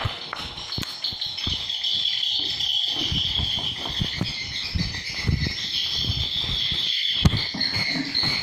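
Edible-nest swiftlets twittering in a dense, continuous high chittering chorus, with irregular low thumps and knocks underneath.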